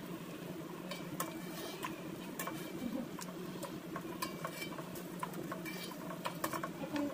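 Metal spoon clinking against an aluminium pot while stirring saba bananas in coconut milk: irregular light taps and clinks, some ringing briefly, coming more often near the end.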